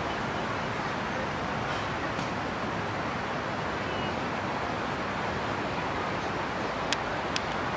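Steady outdoor background noise, an even rushing hiss with no distinct source, broken near the end by two sharp clicks about half a second apart.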